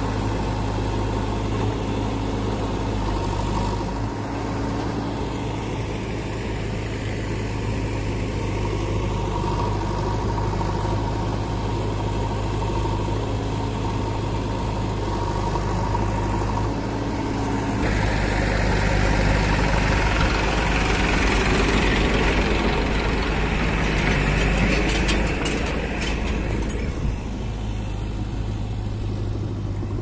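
Diesel engines of a JCB 3DX backhoe loader and a Massey Ferguson tractor running steadily. For several seconds, starting just past halfway, the engine note rises and fills out under load, with a few short clatters near the end of that stretch.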